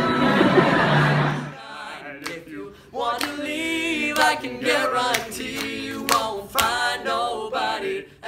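A long held sung note ends about a second and a half in, and a small group of young male voices then sings a cappella, with a few sharp percussive accents.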